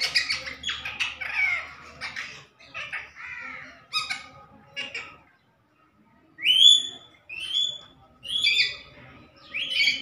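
Rose-ringed (Indian ringneck) parakeet chattering in a rapid, warbling run for about the first five seconds, then giving four loud screeching calls about a second apart.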